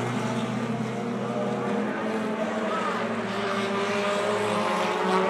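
Several race car engines running together at once, a steady blend of overlapping engine notes that drift up and down in pitch.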